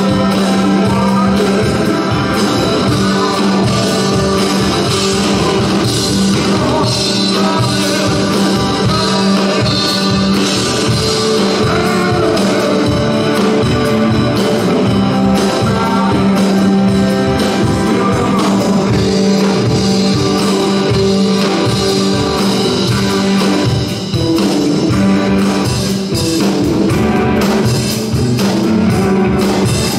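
Live rock and roll band playing a song, with a lead vocal over the band.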